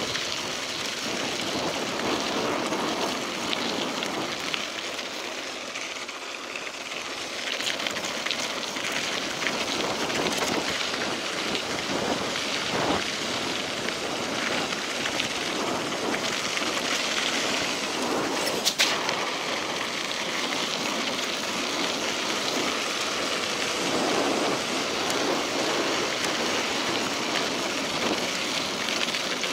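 Mountain bike tyres rolling over a gravel dirt road, a steady crunching, crackling noise mixed with wind on the microphone. A single sharp click, the loudest moment, comes about two-thirds of the way through.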